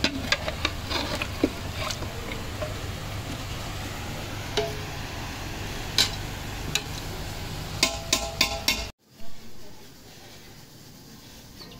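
Metal skimmer stirring a pot of beef trotter stew, clinking and scraping against the metal pot with sharp knocks, several of them ringing briefly, the busiest run about eight seconds in. About nine seconds in the sound cuts off suddenly to a much quieter steady hiss.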